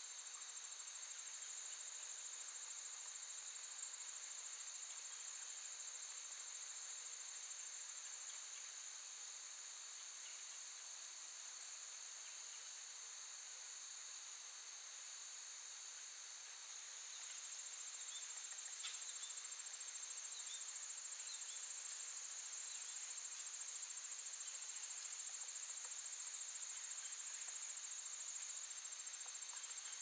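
Steady, high-pitched chorus of insects trilling, growing a little louder a bit past the middle.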